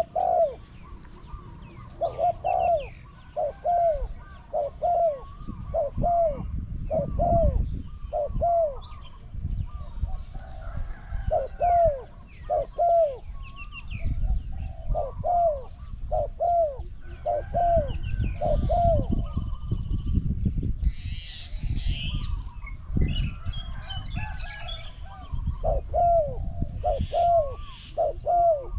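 Spotted doves cooing in long repeated series of low, arching notes: a caged decoy calling to lure a wild dove. Small birds chirp faintly, and a low wind rumble sits on the microphone.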